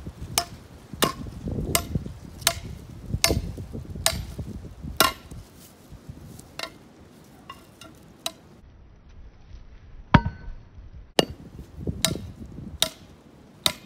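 The back of an axe head hammering the end of a thin metal tube against a tree stump to crimp it flat and closed. Sharp knocks with a short metallic ring come about one every three-quarters of a second, a dozen or more in all, with a brief pause a little past the middle.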